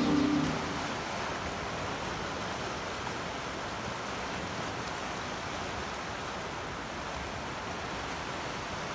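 Sea surf washing over rocks along a shoreline, a steady rush of waves.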